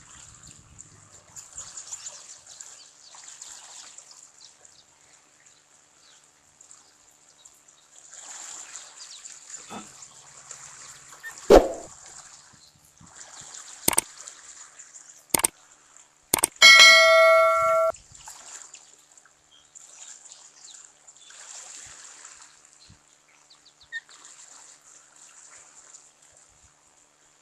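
Subscribe-button animation sound effect: a whoosh, three sharp mouse clicks, and a ringing bell ding lasting about a second and a half, the loudest sound. Faint, uneven outdoor noise lies underneath.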